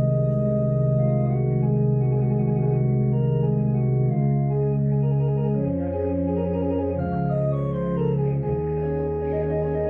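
Organ playing slow, sustained chords. One chord is held for about four seconds, then the harmony changes every second or so.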